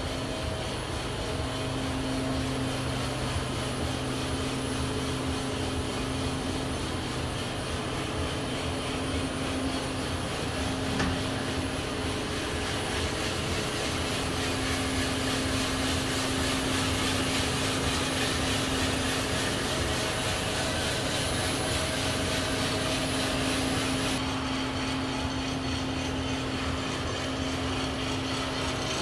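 Coffed SR5 5 kg coffee roaster running, a steady mechanical drone of its fans and motors with a low hum.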